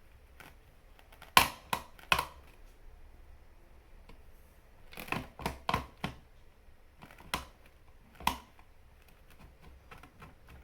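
Sharp clicks and knocks from hard objects being handled: three loud ones about a second and a half in, a cluster of several around the middle, then two single clicks.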